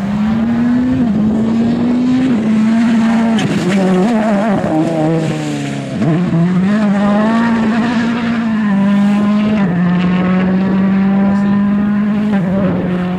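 Rally car engine running hard at high revs, its pitch stepping with gear changes. About four seconds in it drops away as the car slows, then climbs again and holds high.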